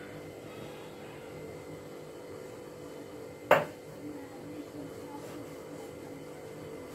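A single sharp clank of steel kitchenware about halfway through, with a short ring, over a steady hum.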